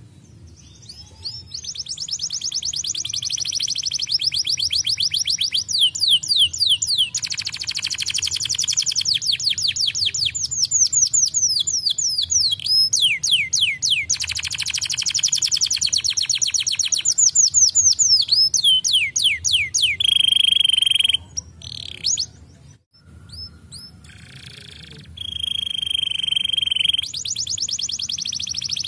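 Domestic canary singing long rapid trills of fast repeated sweeping notes, switching between trill types every second or two. Later there are two held buzzing notes, with a brief pause between them.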